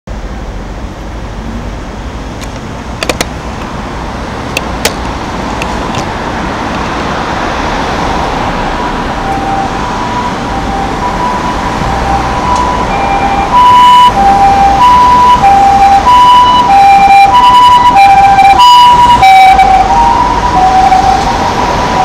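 Ambulance siren sounding its two-tone hi-lo call, switching between a higher and a lower pitch about every half second or so. It comes in faintly about halfway through and grows much louder, as it approaches over the noise of road traffic.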